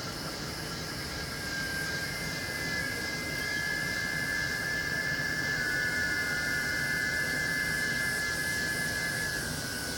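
Steady roar of Iguazu Falls at night, with a thin, high-pitched steady whine layered on top that swells in about two seconds in and fades near the end.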